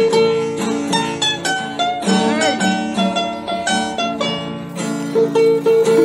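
Background music: an instrumental tune of quickly plucked string notes.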